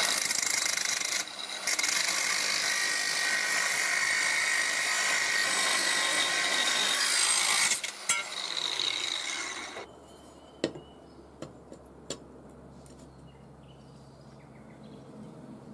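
Angle grinder grinding a steel piece clamped in a vise, loud and even for about eight seconds with a brief dip about a second in. The disc then runs down with a falling hum, and after that only a few light clicks are heard.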